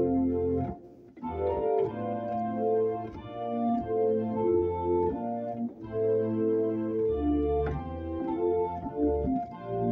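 Organ playing a slow hymn, a traditional Scottish melody in harmony, with held chords over sustained bass notes; it breaks off briefly between phrases about a second in.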